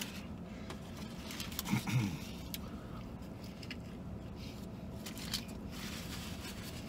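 A man biting into and chewing a fried chicken sandwich, soft wet mouth sounds and small clicks, with a short hummed voice sound about two seconds in. A steady low hum sits underneath.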